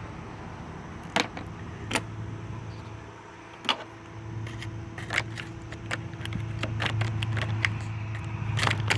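Scattered sharp clicks and light metal taps of hand tools working the screws holding a blown 80 amp battery fuse in a car's fuse box, coming more often in the last few seconds. A steady low hum runs underneath and grows louder in the second half.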